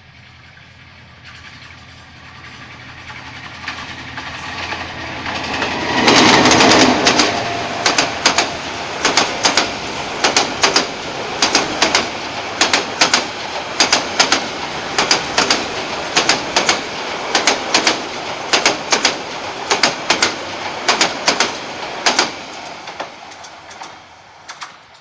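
Bangladesh Railway passenger train passing at speed close by. The diesel locomotive's approach builds up and is loudest about six seconds in. Then the coaches' wheels clack over the rail joints, about two a second, until the last coach passes and the sound falls away near the end.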